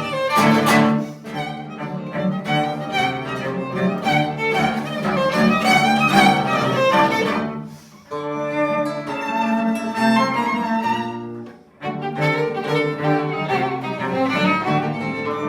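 Background music led by bowed strings, violin and cello, with two brief drops in level partway through.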